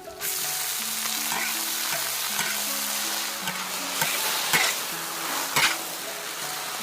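Food frying in hot oil, the sizzle starting suddenly just after the start and holding steady, with a few knocks and scrapes of a utensil stirring in the pan.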